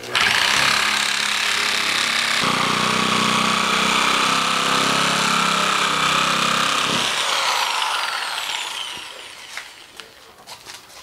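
A handheld power tool starts up abruptly and runs steadily; from about two seconds in it bites into the cement backer board and the sound deepens. A little after halfway the cutting stops and the motor is switched off, winding down with a falling whine.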